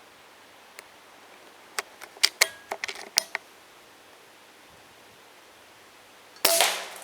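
A cluster of sharp clicks and taps about two to three seconds in, then near the end a single air rifle shot: a sharp crack with a short fading tail.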